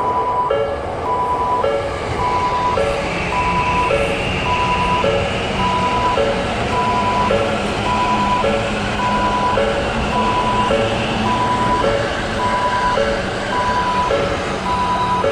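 Japanese railway crossing alarm ringing its electronic 'kan-kan' in a steady rhythm, just under two strikes a second, over a steady rushing noise.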